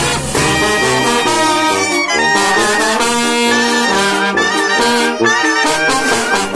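Banda brass band playing a tune, several horns holding and moving notes together in harmony.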